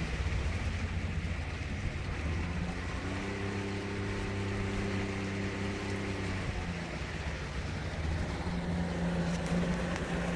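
Motorboat engine running steadily under way, a low drone over the rush of water and wind. Its hum shifts in pitch a few seconds in and again near the end.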